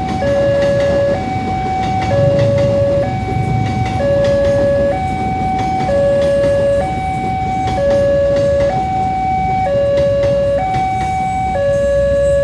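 Railway level-crossing alarm sounding a two-tone electronic signal, a lower and a higher tone alternating, each held just under a second, over the rumble of a passing KRL JR 205 series electric commuter train.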